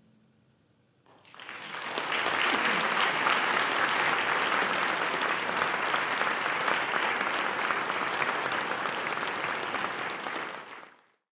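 Concert hall audience applauding at the close of an orchestral and choral piece: after a second of near quiet the clapping breaks out, builds quickly, holds steady and dense, then fades away near the end.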